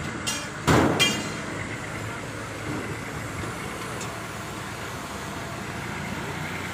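Three sharp metallic clinks of a wrench knocking against metal in the first second, the last one ringing briefly, as the throttle body is bolted back onto the intake manifold; a steady background noise runs underneath.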